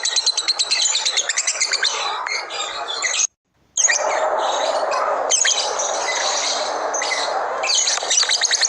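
Labet songbird singing a fast run of repeated high chirps, about eight a second. The sound cuts out abruptly for about half a second a third of the way in, then resumes as busier chirping.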